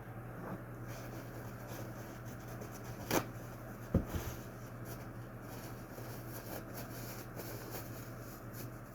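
Faint rubbing and handling noises over a steady low hum. There is a sharp click about three seconds in and a low thump, with a couple of smaller knocks, about a second later.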